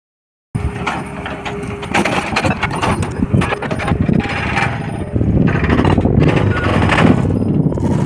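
Tracked excavator with a hydraulic rock breaker at work, engine running and the breaker knocking into rock, starting about half a second in.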